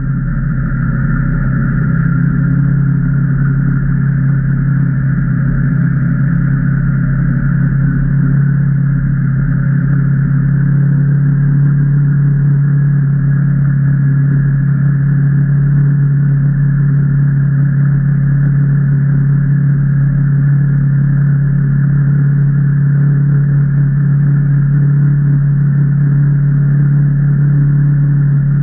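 The Can-Am Maverick Trail 800 side-by-side's Rotax V-twin engine running at a steady, even speed, a low engine note that holds without revving up or down.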